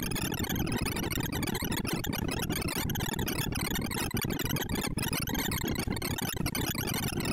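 ArrayVisualizer's sorting sonification: a dense, unbroken stream of very short synthesized blips whose pitches jump all over the range, blurring into a buzzing chatter. The blips come from an Iterative Pairwise Sorting Network comparing and swapping 1,024 values.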